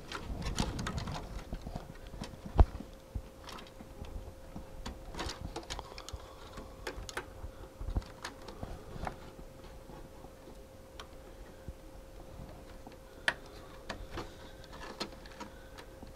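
Irregular small clicks and knocks of hands pressing Tektronix 'harmonica' multi-pin connectors onto board pins and handling wiring inside an oscilloscope chassis, with one sharp louder knock a little over two seconds in. A faint steady hum runs underneath.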